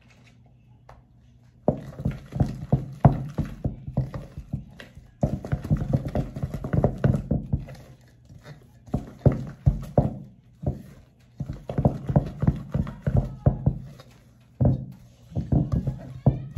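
Wooden spatula mashing and stirring potatoes in a stainless steel mixing bowl, knocking against the bowl several times a second in bursts with short pauses between.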